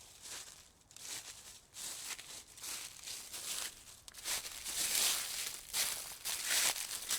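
Footsteps crunching on loose ground, about one step every three-quarters of a second, louder from about halfway through.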